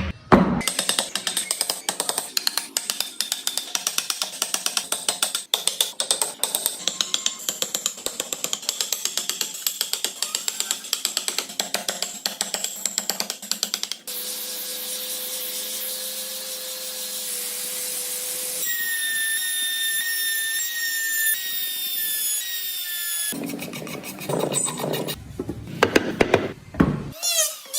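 Woodworking tool sounds in quick cuts: a fast run of clicks or taps for the first half, then a power tool such as a drill running with a steady tone, then whining tones and heavier knocks near the end.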